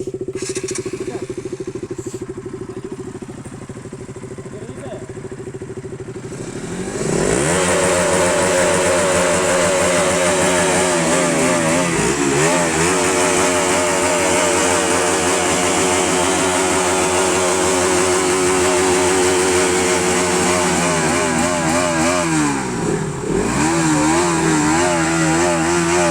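A 200 cc single-cylinder sport motorcycle engine idling, then revved sharply about seven seconds in and held at high revs with a slightly wavering pitch. It dips briefly once, falls back near the end, and is revved up again.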